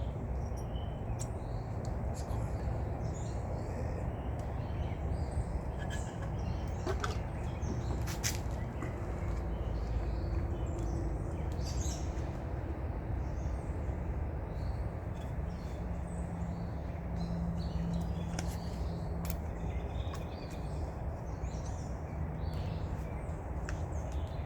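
Scattered bird chirps over a steady low background rumble, with occasional light clicks.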